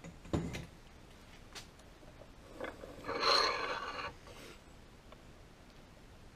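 Steel parts handled at an arbor press: a short knock just after the start, a couple of light clicks, then about a second of metal scraping and rubbing around three seconds in, as the pressed-out rocker arm and sockets are moved.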